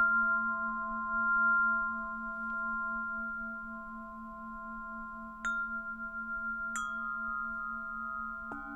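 Tibetan singing bowls ringing on in long sustained tones, the low tone wavering steadily. Two light wind chime strikes ring out about five and a half and seven seconds in, and another bowl is struck near the end, adding new lower notes.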